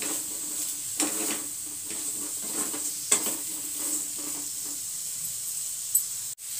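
Radish slices sizzling in hot oil in a kadhai as they stir-fry uncovered, with a spatula scraping and knocking against the pan as it stirs; the sharpest strokes come about one and three seconds in. The sound cuts out for an instant near the end.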